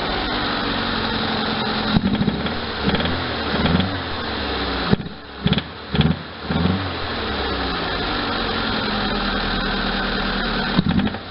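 Double-overhead-cam car engine running warm, its speed rising and falling in several short throttle blips as it is listened to for a knock (rod knock or a blown head gasket suspected).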